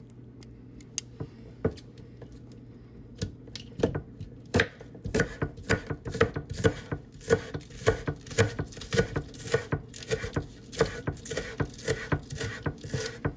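Knife chopping vegetables on a cutting board: a few scattered taps at first, then steady chopping at about three strokes a second from about four seconds in.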